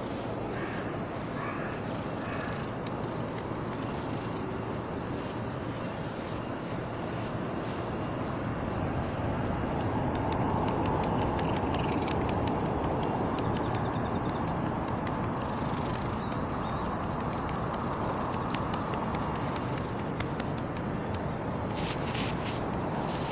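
Cat purring steadily, very close to the microphone, growing louder about ten seconds in and easing back several seconds later.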